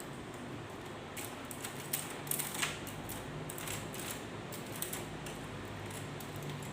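Small mechanical clicks and light scrapes from a K Clover 815 manual typewriter's mechanism being handled during cleaning, irregular and loudest about two seconds in, over a steady low hum.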